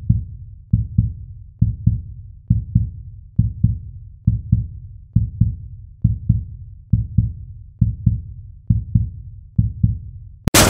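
Heartbeat-like intro sound effect: deep bass thumps in pairs, a pair a little under every second, each dying away quickly. Right at the end it is cut off by a sudden loud crash.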